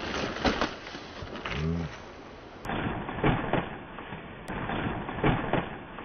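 Scattered knocks and scuffs of a toy monster truck and a child's feet and body against wooden railroad ties and gravel as he falls onto the track.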